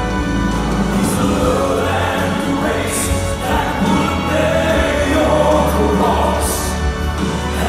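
Male southern gospel quartet singing in close harmony, amplified through a PA, over instrumental backing with sustained bass notes and occasional cymbal hiss.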